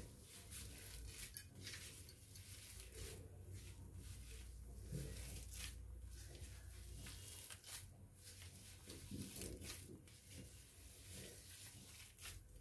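Faint, irregular squishing and rustling of a hand kneading a grated potato and paneer mixture in a stainless steel plate.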